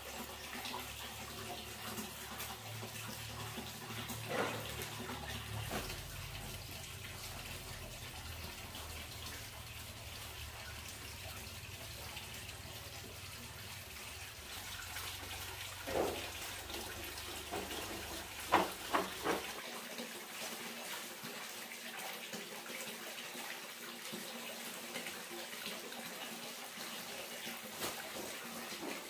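Steady running water with a few short knocks, three of them close together about two-thirds of the way through. A low rumble underneath stops at about the same point.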